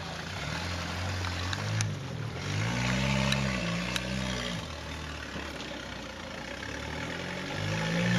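Rock-crawling buggy's engine revving up and easing off as it climbs over boulders, with a strong rise about a third of the way in and another near the end. A few sharp clicks come through in the middle.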